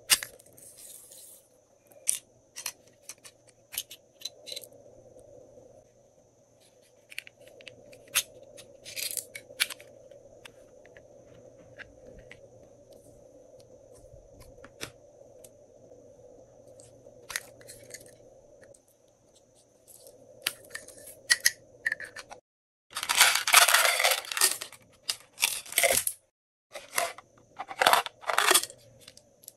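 Small plastic containers of slime add-ins being handled and opened: scattered sharp clicks and taps of plastic, with pieces set down lightly. Near the end comes a loud dense rustle lasting about three seconds, followed by a few shorter ones.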